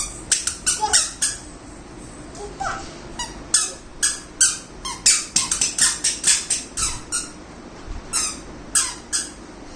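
A child's squeaky shoes squeaking with each step: a long, uneven string of short, high squeaks that drop slightly in pitch, coming quicker in the middle.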